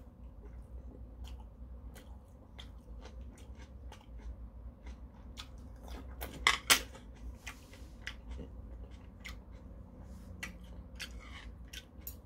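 A person chewing food close to the microphone: wet mouth clicks and smacks about every half second, with two louder, sharp clicks a little past halfway.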